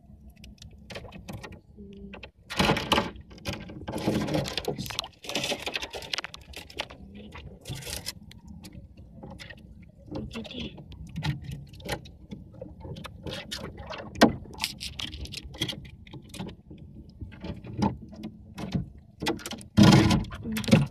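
Wet nylon gillnet being hauled in hand over hand across the side of a small wooden boat: irregular rustling and scraping of the mesh, with water dripping and sharp knocks against the hull, swelling in louder bursts as armfuls of net come aboard.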